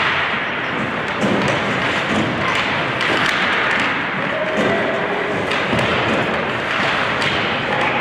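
Ice hockey play: skates scraping the ice, sticks and puck clacking, and thuds against the boards, with players shouting over the steady arena noise.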